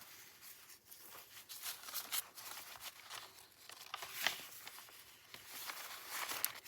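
Sheets of paper rustling and crinkling as they are handled and shuffled, in an uneven run of soft crackles with one sharper crackle about four seconds in.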